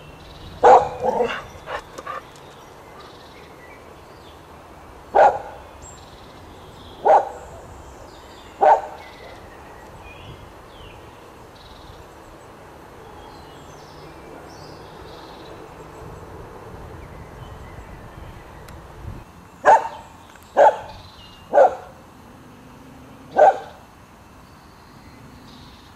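A dog barking in short single barks: a quick run of barks at the start, three spaced barks, a long pause, then four more barks near the end.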